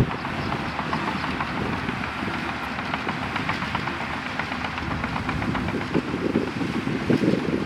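Bulldozer working, its engine running under steady load while its steel tracks keep up a rapid clanking. The engine surges louder about six seconds in and again near the end.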